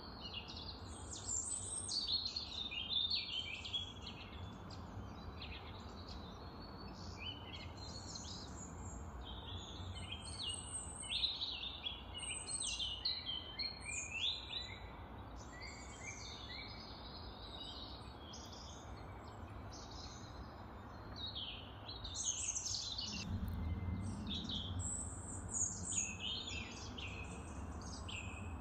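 Birds chirping and singing, many short high calls overlapping one another throughout, over a steady low hiss.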